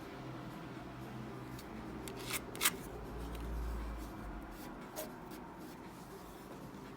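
Light handling and rubbing sounds with a few sharp clicks: two close together about two and a half seconds in and another about five seconds in.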